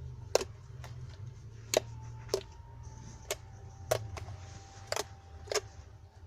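Large slime being squeezed and poked, giving sharp irregular clicking pops, about eight in six seconds, over a low steady hum.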